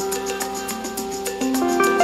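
Background music: a melody of short pitched notes over a quick, steady ticking beat.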